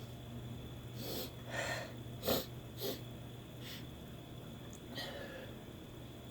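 A woman's short, sharp sniffs and snorts through the nose: about six separate breaths, the loudest a little over two seconds in. These are attempts to provoke a sneeze that has not yet come.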